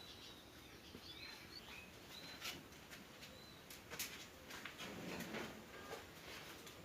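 Small birds chirping faintly in the background, with short high chirps now and then and a few faint clicks.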